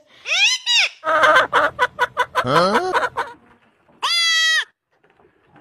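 White goat kid bleating once, a short steady bleat about four seconds in. Before it comes a run of rapid chattering, clucking animal calls.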